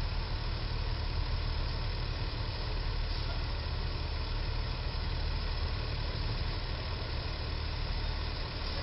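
Truck engines idling with a steady low rumble, heard through a roadside traffic camera's microphone.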